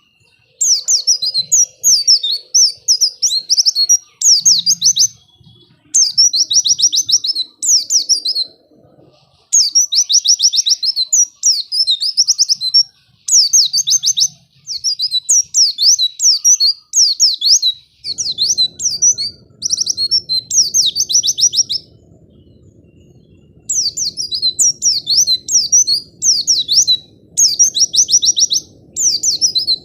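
White-eye (pleci) singing: rapid, high twittering song phrases lasting one to three seconds each, separated by short pauses.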